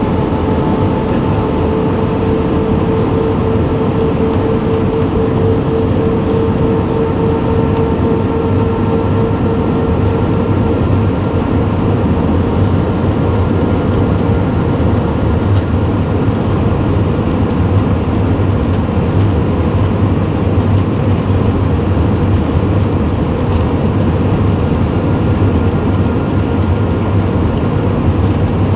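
Steady in-cabin noise of an Airbus A320 on approach: the hum of its IAE V2500 turbofan engines and the rush of air past the fuselage, with a steady mid-pitched tone that fades out about ten seconds in.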